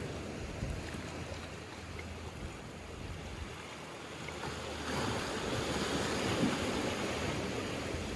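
Small sea waves washing in over rocks and a pebble shore, a steady wash that swells louder about five seconds in and eases off near the end.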